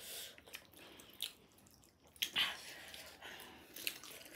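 Close-up eating sounds of spicy chicken wings and noodles: soft, wet chewing and mouth noises, with one louder burst a little over two seconds in.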